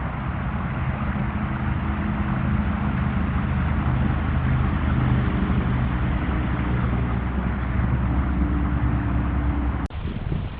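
An engine running steadily, its low hum stepping up and down in pitch now and then over a steady hiss, then cutting off suddenly near the end.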